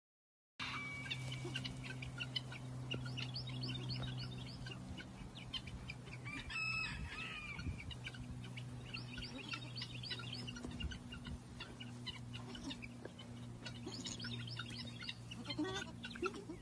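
Farmyard birds: poultry clucking and many short, rapid chirps, with one short louder call about seven seconds in, over a low steady hum.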